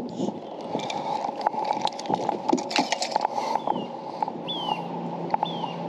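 Scattered light clicks and knocks, with rustling, in the first half. In the second half a bird calls a short falling whistle, repeated about once a second.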